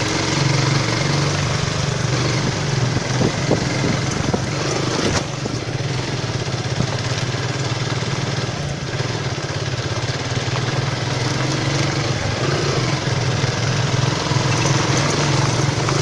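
Suzuki Gixxer motorcycle's single-cylinder engine running steadily while riding a rough, bumpy track, with wind and road noise on the microphone and a few knocks from the bumps.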